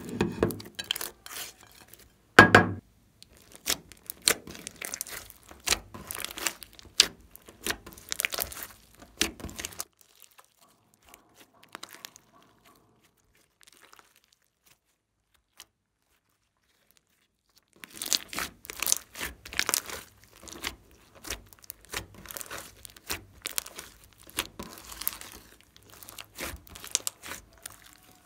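Thick slime with clay mixed in, squeezed, stretched and pulled apart by hand, giving dense wet crackles and pops, with one heavy thud about two and a half seconds in. The crackling stops for several seconds in the middle, then starts again.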